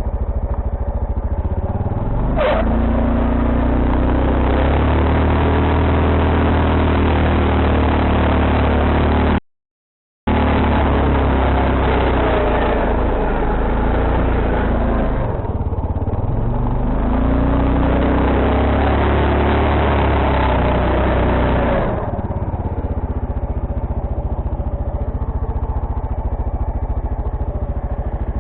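Quad bike engine revved hard for long stretches, its pitch rising and falling, as the machine struggles to make headway in deep snow. The sound cuts out completely for about a second near the middle. Near the end the engine drops back to a steady idle.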